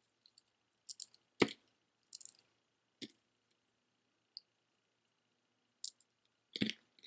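Small pieces of costume jewelry, glass earrings among them, clinking and rattling lightly as they are handled. There are two sharper knocks, about a second and a half in and near the end.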